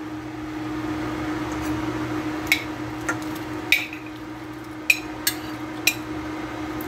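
Raw shrimp being tipped by hand from a ceramic bowl into a steel pot of simmering soup, with about six short, sharp clinks of bowl and shrimp against the pot between about two and a half and six seconds in. A steady low hum runs underneath.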